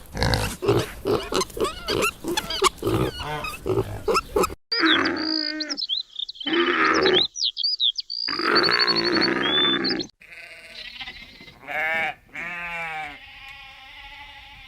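Pigs grunting in quick succession for the first four seconds or so. Then, after a cut, come other animal calls: high chirping over a lower call, and near the end a few short calls that fall in pitch.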